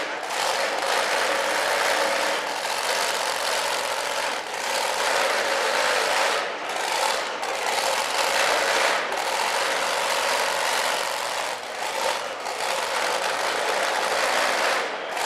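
Two-wheel-drive tractor-pulling truck's big exposed engine idling loudly and steadily.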